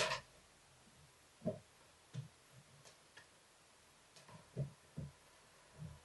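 Soft, irregular thumps of cats' paws landing and scampering on a laminate floor as they leap at a feather wand toy, with one sharper click right at the start.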